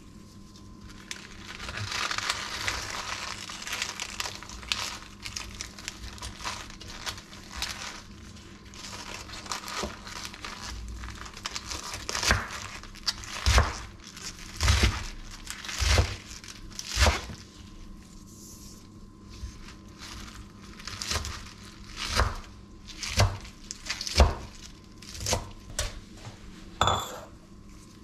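Chef's knife cutting fresh spinach leaves on a wooden cutting board: crisp crinkling and rustling of the leaves as they are gathered and sliced, then sharp knocks of the blade on the board about once a second through the second half. A brief clink near the end.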